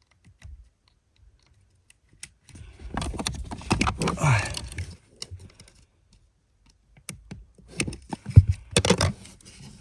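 Plastic clicks, rattles and scraping from a wiring connector being worked loose on a car's central electric module: one bout of handling about two and a half seconds in, then a run of sharper clicks and knocks in the last three seconds.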